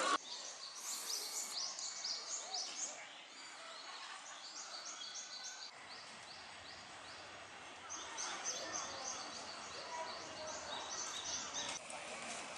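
Small songbirds calling in runs of short, high chirps, several a second, with gaps between the runs, over faint outdoor background noise.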